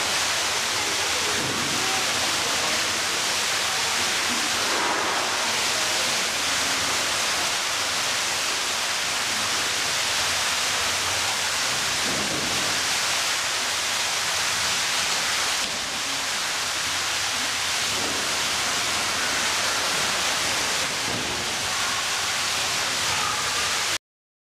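A loud, steady rushing noise like running water or hiss, with faint voices underneath. It cuts off suddenly near the end.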